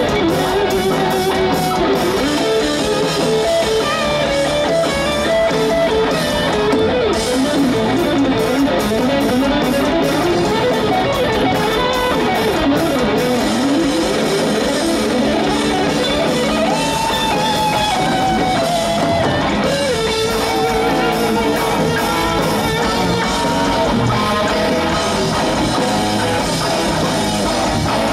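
Live heavy metal band playing an instrumental passage: a lead electric guitar plays a melodic line with pitch bends over drums, bass and rhythm guitar.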